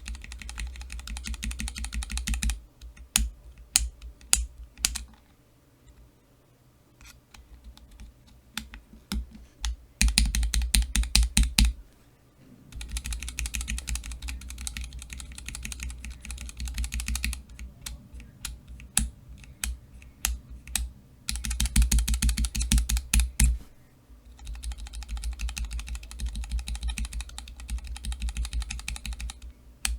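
Cherry MX Black linear mechanical key switches in keychain testers being pressed rapidly: several bursts of fast clicking, each lasting a few seconds, separated by short pauses and a few slower single presses.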